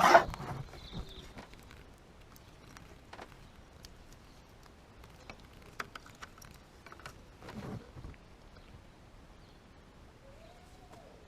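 Hands working on the sensor's wiring under the bonnet: a loud knock right at the start, then scattered light clicks and taps and a brief scrape about seven and a half seconds in.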